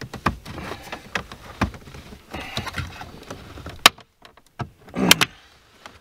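Plastic dash trim bezel of a 2020 Ford F350 being pulled by hand against its snap-in retaining clips: repeated sharp clicks and creaks of plastic under strain, with the loudest snaps about four and five seconds in.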